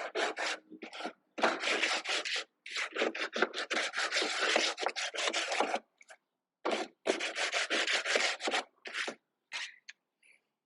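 A hand tool rubbing back and forth over a wooden board in quick, repeated strokes, smoothing a cut half-lap joint. The strokes come in three runs with short breaks between them.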